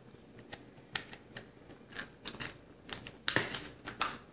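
Plastic snap clamps at the top of a waterproof phone pouch being lifted and worked open by hand: scattered small clicks, with a quick run of louder clicks about three and a half seconds in.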